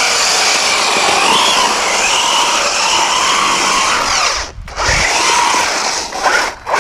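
Losi Super Rock Rey RC truck's brushless electric motor and drivetrain whining under throttle, the pitch rising and falling as the driver works the throttle. The whine cuts out sharply twice, about four and a half and six and a half seconds in, with a low thump just after the first cutout.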